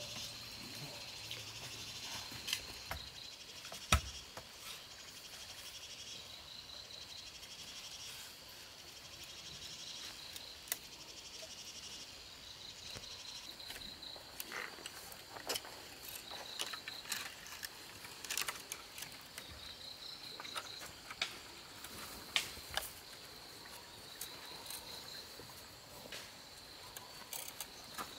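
Forest insects calling: short pulsed trills repeat every few seconds over a steady high insect drone. Scattered clicks and knocks sound throughout, the loudest about four seconds in.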